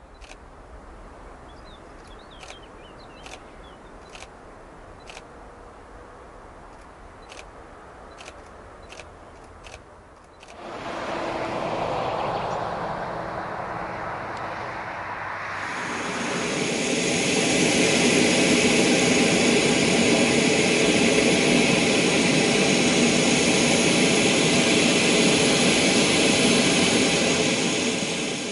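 Boeing 737-400 jet engines running. The first part is a distant, quiet rumble with a few faint clicks. About ten seconds in it gets much louder, and from about sixteen seconds the engines run loud and steady, with a mix of whining tones.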